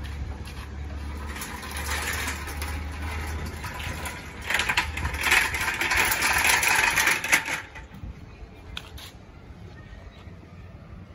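Mild-steel expandable scissor barricade being pushed shut, its steel strips and riveted pivot joints clattering and rattling as they fold together. The clatter grows louder about halfway through and stops abruptly as the barricade closes, followed by a few stray clicks.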